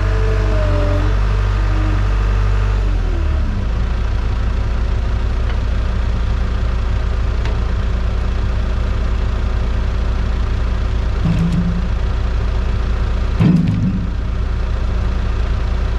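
An engine running steadily, dropping in pitch about three seconds in, with a few brief louder rises in pitch near the end.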